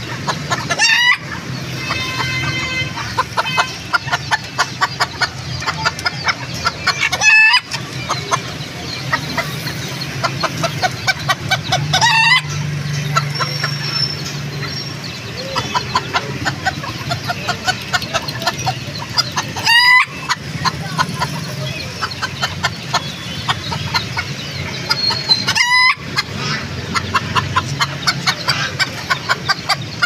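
Chickens clucking and chattering steadily. A rooster crows about five times, roughly every six seconds.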